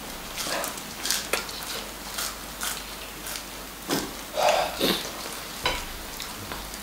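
Close-up eating sounds of braised pork ribs and aged kimchi: wet chewing and mouth smacking in irregular bursts, loudest about four to five seconds in.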